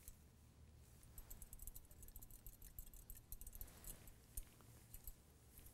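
Faint, scattered light clicks and rattles of a wire test-tube holder being clamped onto a glass test tube.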